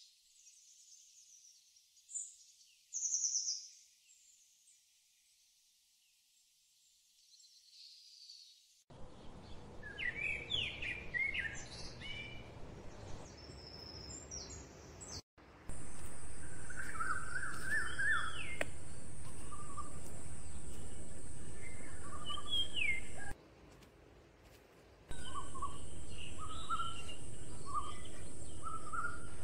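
Small birds chirping and singing in short, varied calls, faint at first and fuller after about nine seconds, over a low background rumble. About halfway a steady high-pitched hiss comes in as the loudest sound, drops out for a couple of seconds near the end, then returns.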